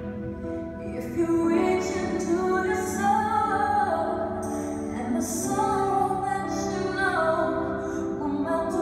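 A song sung by a female voice over instrumental accompaniment, with long held, sliding notes.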